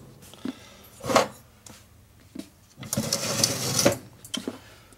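Metal engine parts being handled on a steel workbench: a sharp clunk about a second in, a few light clicks, and a rattling scrape lasting about a second starting about three seconds in.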